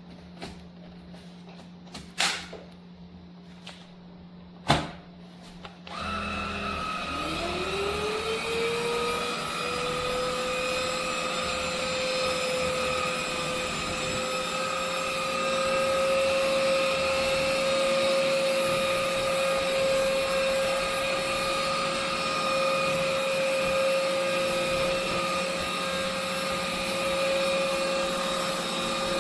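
Two sharp clicks, then about six seconds in a VersLife cordless stick vacuum's motor switches on, its whine rising in pitch over a couple of seconds as it spins up and then running steadily.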